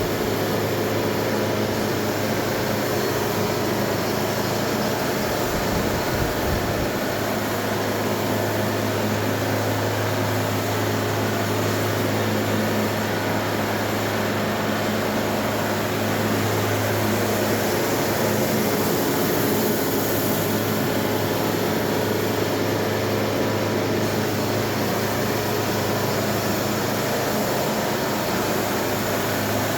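A motor running steadily at constant speed, with a strong low hum.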